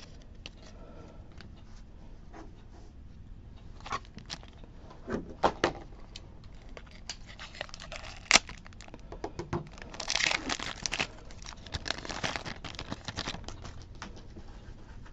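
Foil Pokémon booster pack wrapper being crinkled and torn open, with scattered sharp snaps and rustles of cards being handled. A longer crackly stretch of foil tearing comes about two-thirds of the way through.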